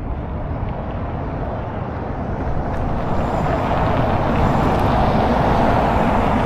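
Street traffic: a passing vehicle's noise swells and grows louder over the second half, over a steady low rumble.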